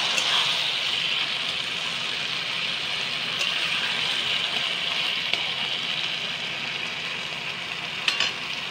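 Taro-leaf greens (kochu shak) sizzling steadily in a metal karai as a flat metal spatula stirs them, with a few light taps of the spatula on the pan.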